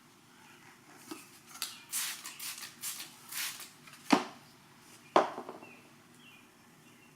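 Hand spray bottle spritzing application fluid onto a vinyl overlay in a quick series of short hissing squirts, followed by two sharp clicks about a second apart.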